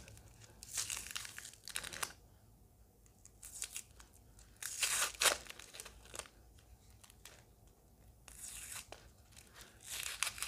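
Clear plastic wrapping being peeled and torn off a small plant pot by hand, crinkling and tearing in about five short bursts with quiet gaps between.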